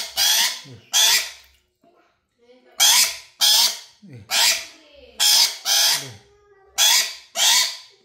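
Black-capped lory screeching harshly while held by hand in a bucket of water: about ten short, loud screeches, three in quick succession, then a pause of about a second, then seven more.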